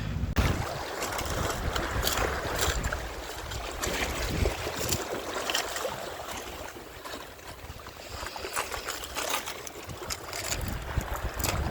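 Sea water washing and rushing over shore rocks, with wind buffeting the microphone and a few scattered light clicks.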